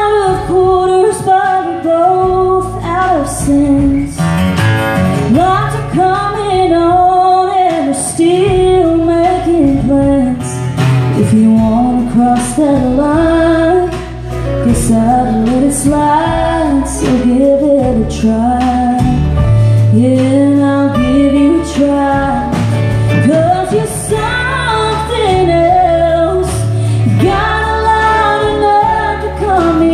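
Live country band performing: a woman singing a bending, gliding melody over acoustic guitars and drums, loud and steady throughout.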